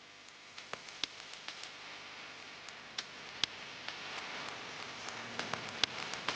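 Scattered, irregular light clicks and taps over a faint hiss that slowly grows louder.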